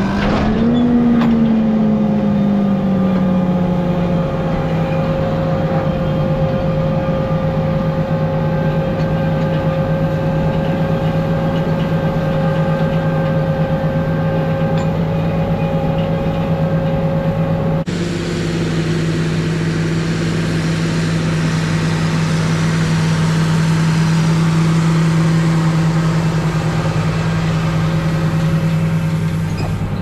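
John Deere 8530 tractor's six-cylinder diesel engine running steadily under load, pulling a seven-bottom moldboard plough through the soil. Its note rises, then sinks and settles over the first few seconds, and the sound shifts abruptly about 18 seconds in.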